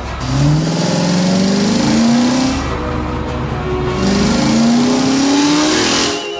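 Car engine sound effect revving up twice, each rev rising in pitch over about two seconds, over background music.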